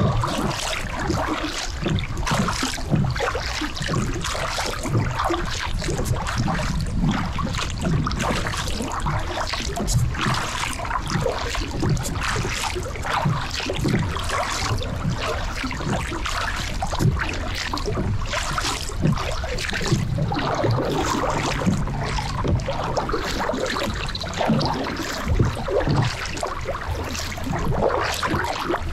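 Kayak paddle dipping and splashing in calm river water, stroke after stroke, from a folding kayak.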